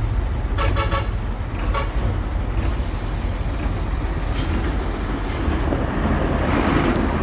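Heavy vehicle's engine rumbling steadily, with a few short pitched sounds in the first two seconds and a hiss of road or wind noise coming in after about two and a half seconds.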